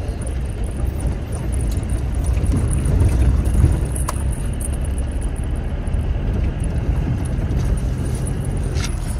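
Car heard from inside the cabin while driving along a rough dirt road: a steady low rumble of engine and tyres that swells briefly about three seconds in. Two sharp clicks come through, one about four seconds in and one near the end.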